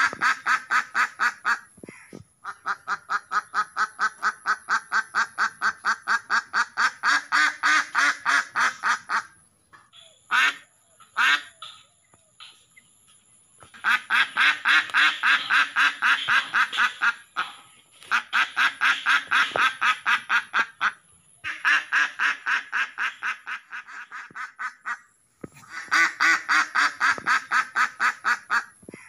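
Domestic ducks quacking in long rapid runs of about four or five quacks a second, broken by short pauses. About a third of the way in comes a lull with only a few single quacks.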